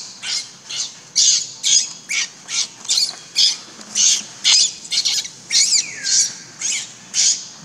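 Infant macaque screaming in distress: a run of short, high-pitched shrieks, about two a second, with one drawn-out shriek whose pitch falls a little past the middle.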